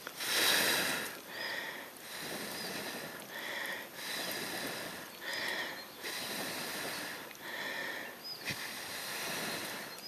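A person blowing in repeated breaths, about one a second, into the firebox of a homemade wood-burning camping stove. The first blow is the loudest. It is the brief fanning that brings wood smouldering on hot coals up to open flame.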